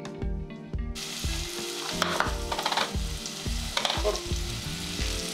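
Marinated chicken sizzling in hot oil in a nonstick frying pan, the sizzle starting about a second in, with louder crackling about two seconds in as sliced red onion goes into the pan.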